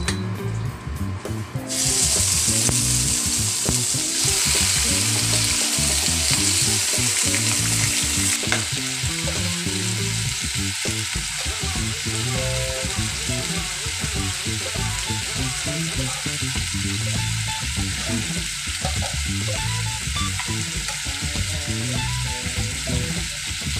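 Chicken and pork pieces frying in hot oil in a nonstick wok. The loud sizzle starts suddenly about two seconds in as the meat goes into the oil, then settles after about eight seconds to a steady frying hiss.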